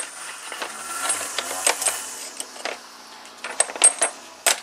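Steel pulley-tool pieces clinking against each other and the plastic case as they are picked through in a pulley puller/installer kit: a string of sharp, irregular metal clinks. A weed trimmer runs faintly in the background.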